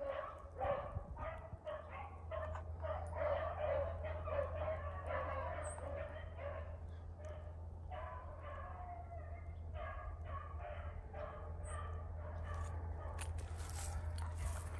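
Pack of beagles baying on a rabbit's track, a running chorus of short repeated barks from several dogs. Near the end, footsteps crunch through dry leaves and brush.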